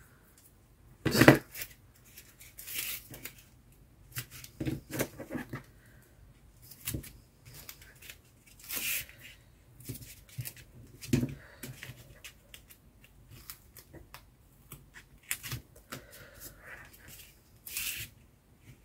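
Non-stick craft scissors snipping through card and paper in irregular cuts, with paper rustling and handling between them; the blades are still sticky with old glue residue.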